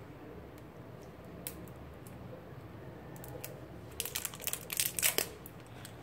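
Plastic crinkling and clicking as a sauce bottle and its wrapping are handled: a quick cluster of small crackles about four seconds in, lasting just over a second.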